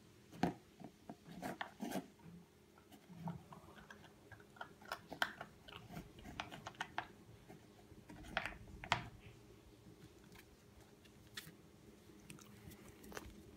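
Doberman pinscher puppy eating from a plastic tub: irregular crunches and clicks of chewing, thinning out after about nine seconds.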